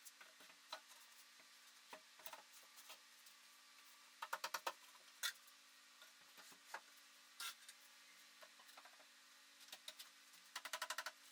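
Near silence broken by faint sharp clicks and ticks: a quick run of clicks about four seconds in, a few single clicks, and another quick run near the end.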